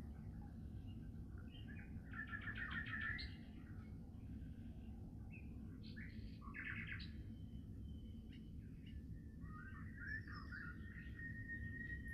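Small songbirds chirping and singing in short trilled phrases, loudest about two and six seconds in. Near the end a thin steady whistling tone starts and holds, over a steady low rumble.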